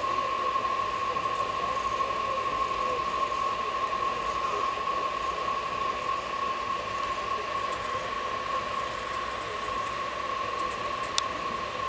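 Steady hiss with a constant high-pitched whine, the running noise heard inside an air-conditioned train coach. A single sharp click near the end.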